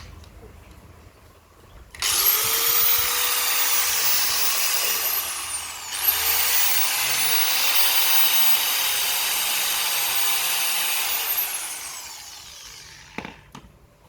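Electric motor of a Japanese-made Makita power tool switched on and run up to a steady high whine as a test. Near the middle it is let off briefly and dips, then brought straight back up to speed, and near the end it is released and winds down over a second or so, followed by a couple of clicks.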